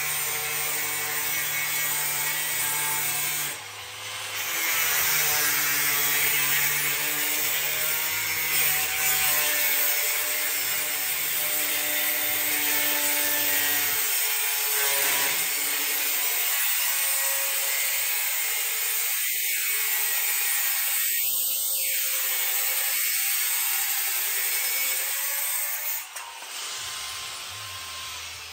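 Angle grinder with a cutting disc slicing through sheet steel: a steady, loud, hissing whine that dips briefly about three and a half seconds in and drops away a couple of seconds before the end.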